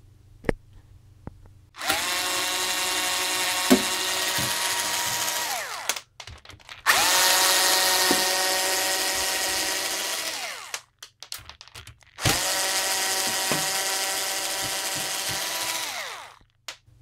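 Power drill-driver backing out the screws of a power supply's metal casing. It runs in three bursts of about four seconds each, with a steady whine whose pitch falls as the trigger is let go. Short clicks of screws and handling come between the bursts.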